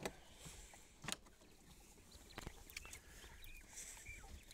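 Faint, short chirps from caged Japanese quail, several soft calls in the last second or so. A few light knocks come earlier.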